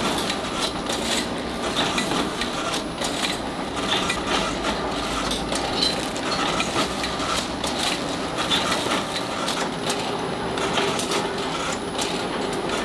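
Automatic walnut-cake wrapping machine running: a steady clatter of small clicks and knocks from its turntable and paper-wrapping mechanism.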